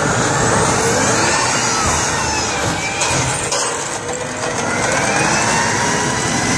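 M1 Abrams tank passing close by, its gas-turbine engine giving a whine that rises and falls over the grinding of the tracks on gravel.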